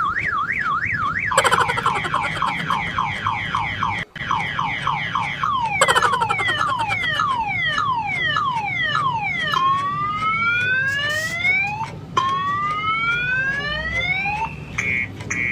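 Car alarm siren cycling through its tone patterns. It opens with a fast up-and-down warble, changes about a second in to rapid falling chirps that gradually slow into longer falling sweeps, then gives two long rising whoops, and ends with a few short beeps.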